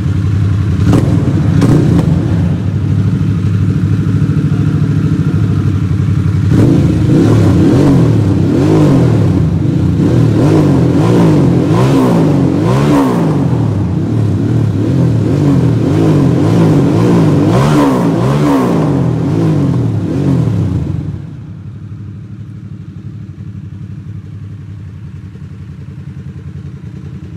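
Harley-Davidson Sportster S's 1250 cc V-twin, breathing through a full aftermarket dual-exit exhaust, revved again and again with a deep bass note, its pitch rising and falling in quick blips. About 21 seconds in it drops back to a steady idle.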